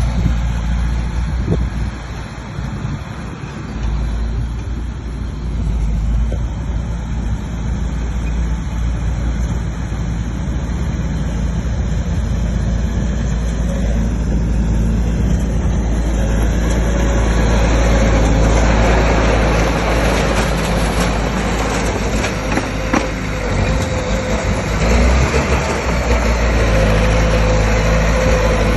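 Bulldozer's diesel engine running steadily, growing louder and harsher about halfway through.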